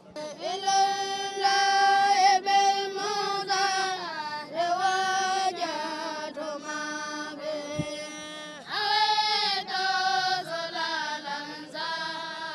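A boy singing a chant without accompaniment: long held notes that waver and slide between pitches, in phrases with short breaks between them.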